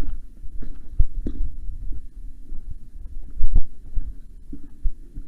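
Irregular low thumps and a few sharp knocks, the sound of a player's footsteps and gear jostling a body-worn camera as he moves.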